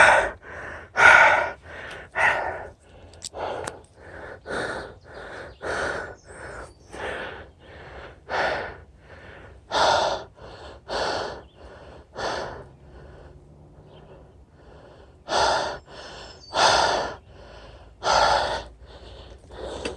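A person panting hard for breath after climbing uphill on a mountain bike. The breaths come close together and loudest at first, then ease off, stop for a couple of seconds past the middle, and resume with a few heavy breaths near the end.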